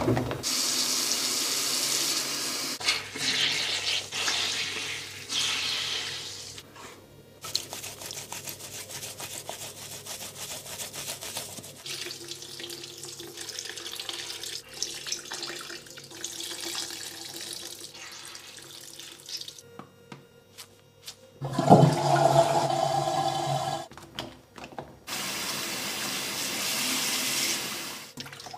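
Tap water running into a sink in stretches, turning on and off, while makeup brushes and beauty sponges are rinsed and washed. A louder, lower rush of water comes about two-thirds of the way through.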